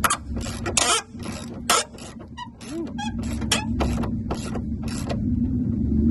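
Ratchet wrench clicking in short uneven strokes as the strut brace's mounting nuts are run down. Behind it a car engine hums steadily nearby, growing louder near the end.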